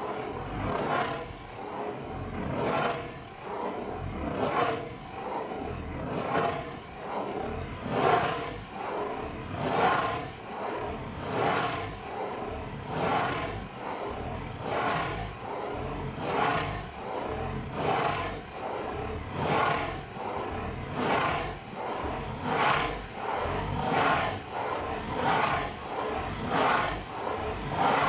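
Fingernails scratching in circles on the lid of a corrugated cardboard Pizza Hut pizza box, close to the microphone: a rhythmic scraping that swells and fades a little faster than once a second.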